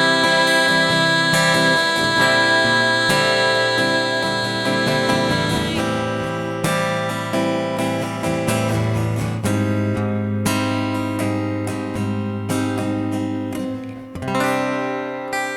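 Instrumental closing bars of a live acoustic ballad: acoustic guitar strumming and picked chords, with a note held over them for the first six seconds or so. The music slowly gets quieter toward the end.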